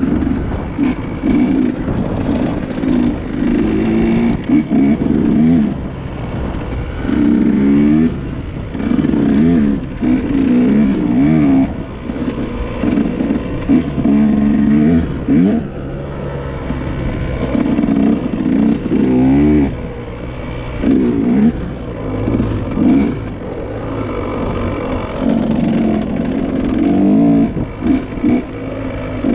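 KTM dirt bike engine under hard riding, revving up in repeated bursts with the pitch climbing through each, then easing off between them as the throttle is rolled on and off.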